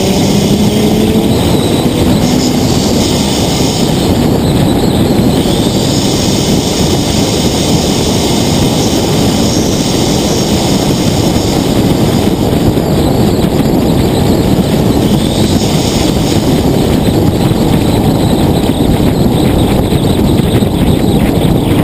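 Steady rush of wind and road noise on a camera mounted low on the outside of an R35 Nissan GT-R at speed. In the first couple of seconds the engine note rises faintly beneath the wind.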